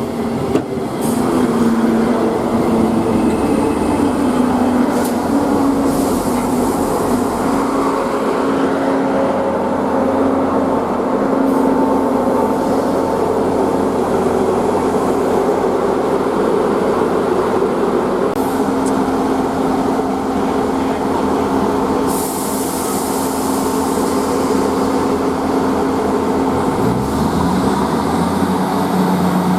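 Diesel train running past, a steady engine note over the rolling noise of wheels on rail, with a few sharp clicks. Near the end the engine note rises in pitch.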